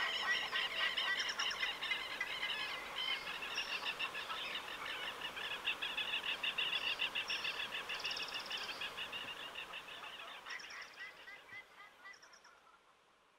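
A dense chorus of many birds chirping and calling, fading out gradually over the last few seconds.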